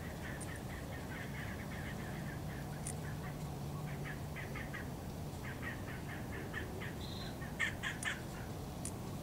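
Birds calling: runs of short, quickly repeated calls, then a brief high whistle and a few louder, sharper calls near the end.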